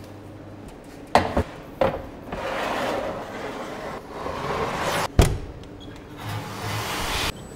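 A metal loading peel sliding in and out of a deck oven: stretches of scraping on the oven's rails, with sharp metal knocks as it is set down and handled, three early on and a loud one a little past the middle.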